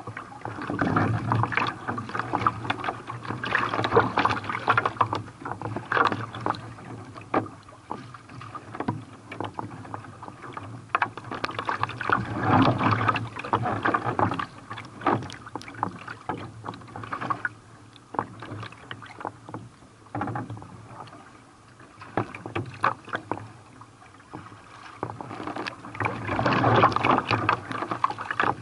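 Water splashing and sloshing around a carbon kayak being paddled in waves: irregular surges of rushing water, with sharp slaps and splashes of paddle and chop against the hull.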